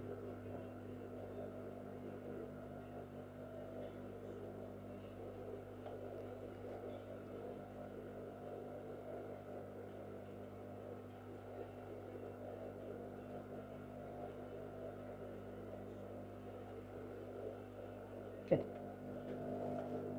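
Steady low electrical hum, with soft rustling as satin and organza fabric is handled, and a single sharp knock near the end.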